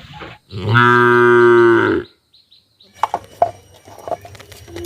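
A cow mooing once: a single long, loud moo of steady pitch lasting about a second and a half, which stops abruptly. After a second of silence come a few scattered clicks and knocks.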